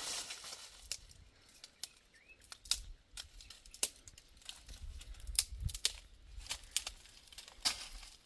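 Irregular crisp snaps and tearing crackles, like dry grass or plants being torn, about one or two a second, over a low rumble.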